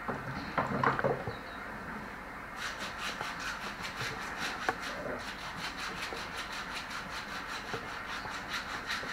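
Pedicure foot file rasping quickly back and forth over the sole of a foot in quick, even strokes, starting about two and a half seconds in, to scrub off dead skin and callus. A few louder short handling sounds come in the first second or so.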